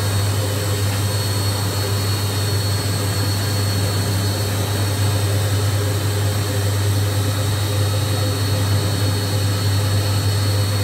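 Centrifugal oil filter running, its electric motor giving a steady hum with a faint high whine above it.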